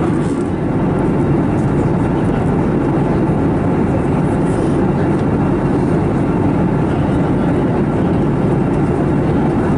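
Steady cabin noise of an Airbus A321neo in flight: the rush of air along the fuselage and the hum of its CFM LEAP-1A engines, heard from inside the passenger cabin.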